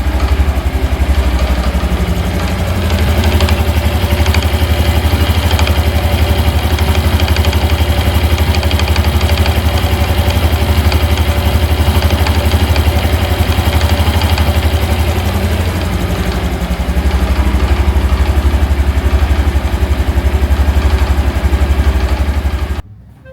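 Honda CT125 Hunter Cub (JA65) air-cooled single-cylinder engine idling with a conspicuous rattle (kata-kata). The owner suspects the clutch damper is behind the rattle. The engine sound cuts off abruptly near the end.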